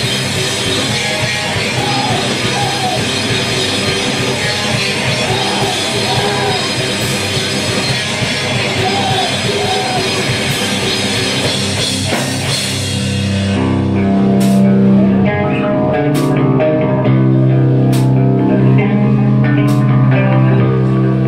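A screamo/hardcore band playing live: a dense wall of distorted electric guitars and pounding drums. About 13 seconds in, it drops into ringing, sustained guitar chords over bass, with single cymbal crashes every couple of seconds.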